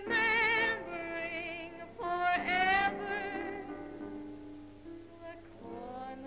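A woman singing a slow song with wide vibrato over orchestral accompaniment. She holds two loud notes, one at the start and one about two seconds later, then sings more softly.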